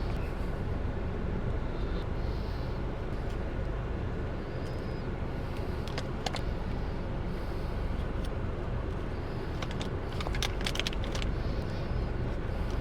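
Steady low rumble of a car, with a few scattered light clicks and taps.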